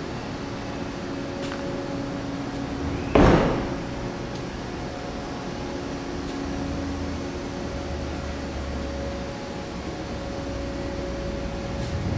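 Steady machine hum of a workshop, with one loud thump about three seconds in that dies away quickly, and a couple of faint clicks.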